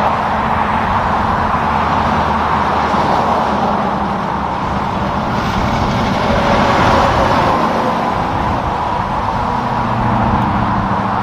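Tractor-trailers passing on a highway: a steady rush of tyre noise with the drone of diesel engines, swelling slightly as a truck goes by.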